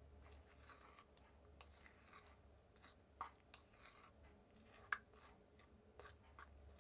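Faint, scattered scrapes and light ticks of a dry gram-flour and arrowroot mix being stirred in a plastic bowl.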